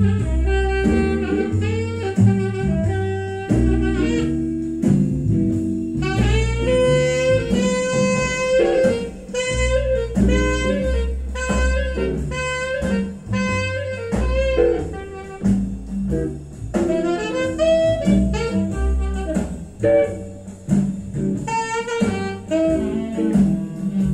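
Jazz with a saxophone lead over bass, played from a vinyl record through Avantgarde Uno horn loudspeakers driven by a 2A3 tube amplifier, heard in the room.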